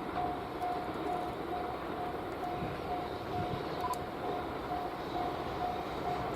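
Railway level-crossing warning bell ringing in a steady repeating 'kan-kan' of about two strokes a second, over a steady rumble of noise. The bell signals that a train is approaching.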